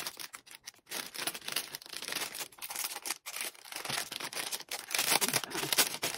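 Clear plastic packaging bag crinkling and rustling in irregular crackles as a binder is slid out of it and the bag is pulled away.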